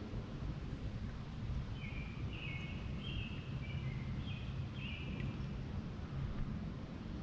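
A songbird singing a quick string of short high notes from about two seconds in until about five seconds in, over a steady low rumble.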